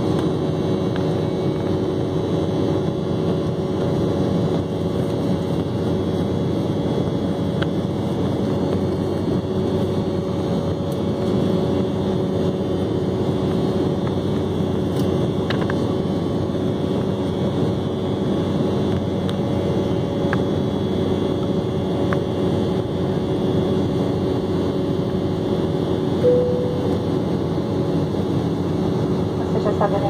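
Steady cabin drone of a jet airliner in its climb after takeoff: turbofan engine and airflow noise with a steady hum of several tones. A short tone sounds briefly near the end.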